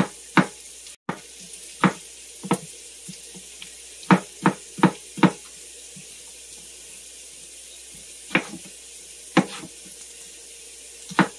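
Chef's knife chopping raw potato on a cutting board: about a dozen short, sharp knocks at uneven intervals, with a quick run of four a little past the middle. Underneath, a steady hiss from carrots and celery sizzling in butter in the pan.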